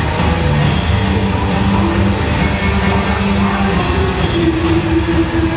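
Heavy metal band playing live: distorted electric guitar and bass over a drum kit with cymbal crashes. The guitar holds one long note for about three seconds, then a higher held note from about four seconds in.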